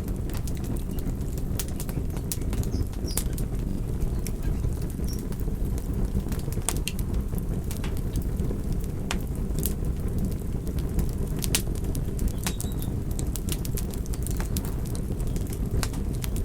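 Wood fire burning: a steady low rush of flames with irregular sharp crackles and pops scattered throughout.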